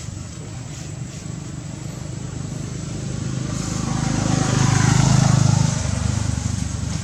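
A motor vehicle's engine passing by, growing louder to a peak about five seconds in and then easing off.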